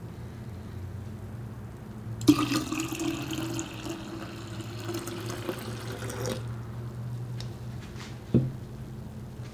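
Water poured from a glass jar into a ceramic pitcher: a steady splashing pour of about four seconds, starting about two seconds in. A single knock follows near the end.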